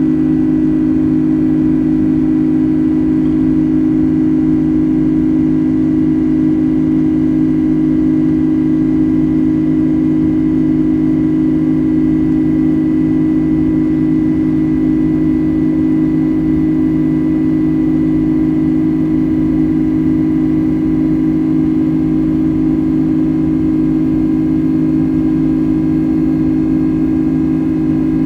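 Boeing 737 cabin drone during the climb after takeoff, heard from inside the cabin: the turbofan engines at climb power give a steady low hum with a few held tones above it, over a wash of airflow noise.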